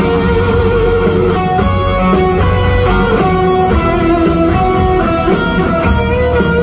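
Live rock music: electric guitar played on a white hollow-body guitar with a Bigsby tailpiece through Marshall amplifiers, over drums and cymbals. It is a phone recording from an arena crowd.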